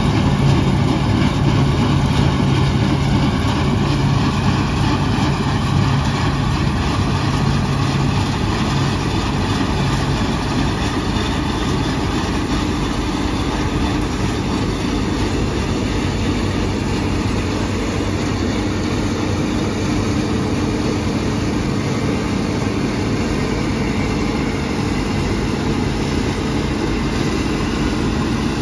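Bizon Z056 Super combine harvester at work cutting and threshing grain: its SW-400 six-cylinder diesel runs steadily under load together with the threshing and cutting machinery.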